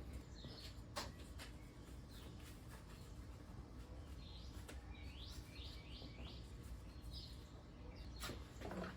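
Faint bird chirps: scattered short calls, with a quick run of four about five seconds in, over a low steady hum. A single sharp click about a second in.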